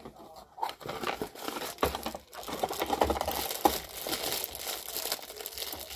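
Crinkling and tearing of a small plastic packet as it is pulled from a cardboard mystery-figure box and opened, an irregular crackle that gets fuller and louder about halfway through.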